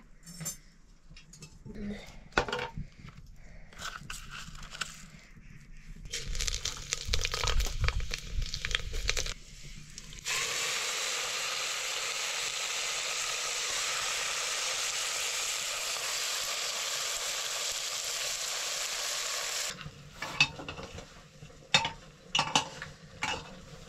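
Momos sizzling in hot oil in an aluminium pot over a wood fire, a steady even hiss that starts suddenly and cuts off about ten seconds later. Before and after it, metal pots and utensils clink and tap.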